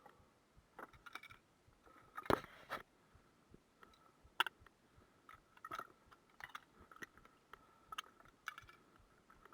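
Footsteps crunching on loose slate, an uneven step every half second to a second.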